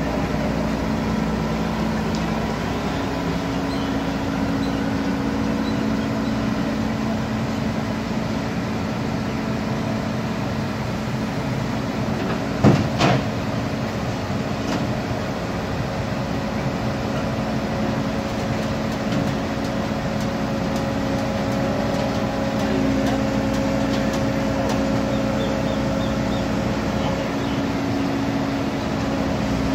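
Volvo crawler excavator's diesel engine running steadily under load as the machine climbs its tracks onto a tilted truck deck, with a sharp double knock about thirteen seconds in.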